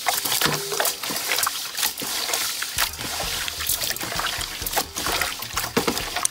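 Hands squeezing and kneading pig's large intestine in a stainless steel bowl of salted water with banana leaves: irregular wet squelches and sloshing, as the intestine is scrubbed clean.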